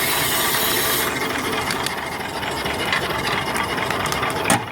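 Small 3–4 horsepower steam engine running steadily on its boiler, with a quick, even mechanical clatter. A loud hiss falls away about a second in, and there is one sharp knock near the end.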